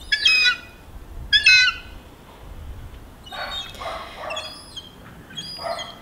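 Seagulls calling loudly overhead: two sharp squawking calls about a second apart, then a run of quieter calls over the last few seconds.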